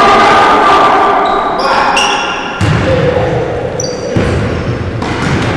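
Echoing noise of a game in a sports hall: short high shoe squeaks on the court floor over thuds of a ball and running feet, with some shouting.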